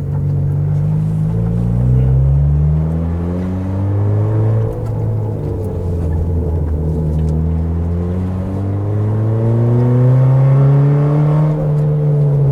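Car engine accelerating hard. Its pitch climbs for about four seconds, drops suddenly at a gear change, then climbs again in the next gear and levels off near the end.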